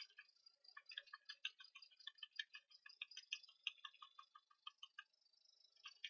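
Faint, rapid clicking of a computer key tapped over and over, about five taps a second, pausing briefly before a last short run near the end.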